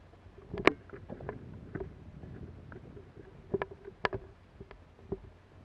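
Movement noise of a player moving through woodland with a head-mounted camera: a low rustle and rumble of kit and footsteps, with scattered sharp clicks, the loudest under a second in and two close together a little past halfway.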